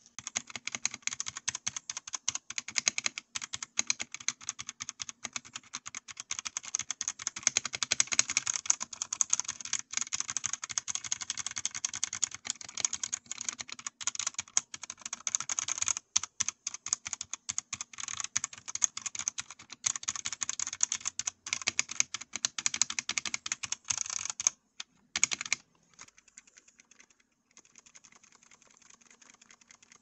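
Fast typing on a Redragon Castor K631 mechanical keyboard with Outemu Red linear switches and double-shot ABS keycaps: a dense stream of key clacks. The typing stops about 24 seconds in; a couple of clacks follow, then fainter, sparser clicking.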